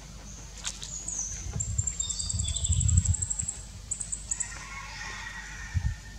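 Small birds chirping, with a fast high trill in the first half, over a low, uneven rumble.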